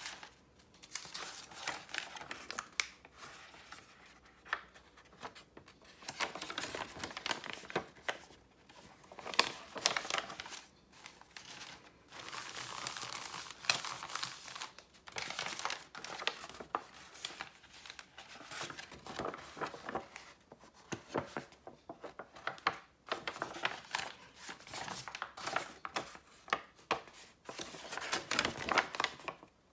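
Sheets of hand-dyed paper being handled, rustled and crinkled, with irregular crackles and sharper snaps.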